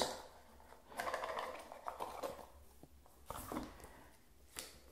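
Faint rustling and light tapping of a small cardboard box and paper packaging being handled, with a few short rustles and a sharp light click near the end.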